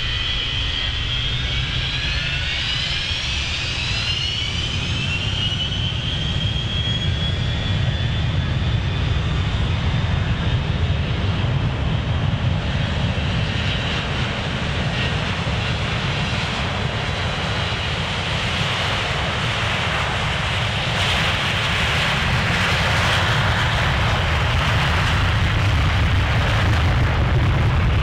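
Boeing 727-200's three rear-mounted Pratt & Whitney JT8D turbofans spooling up with a rising whine over the first several seconds, then a crackling jet roar that grows steadily louder as the jet accelerates along the runway, typical of a 727's takeoff roll.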